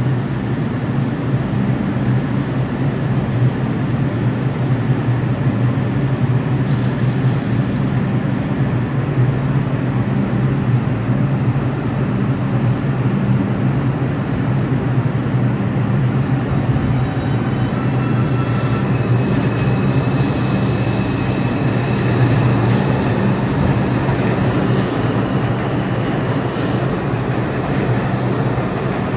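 A 2 express subway train stands at the station with a steady low hum, then pulls out. Its traction motors whine, rising in pitch from about two-thirds of the way in, over the rumble of the cars.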